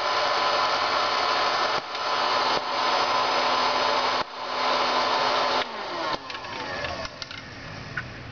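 Hot-air popcorn maker's fan blowing steadily, then switched off about five and a half seconds in, its hum falling in pitch as the fan winds down; a few faint clicks follow.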